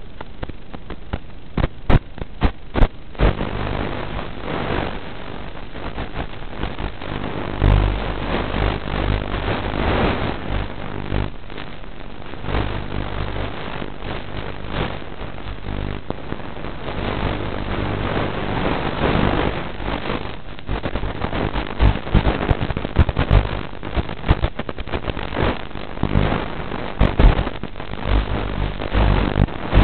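Hiss and crackling static from an analog 5.8 GHz FPV video link, with frequent sharp clicks and pops. It is the noise of a weak signal breaking up while the quad lies in the grass.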